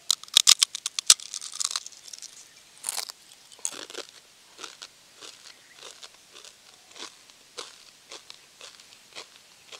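A crisp, deep-fried achappam (rice-flour rosette cookie) is bitten into with a quick burst of loud, sharp crunches in the first second. It is then chewed with a steady run of softer crunches, roughly two a second.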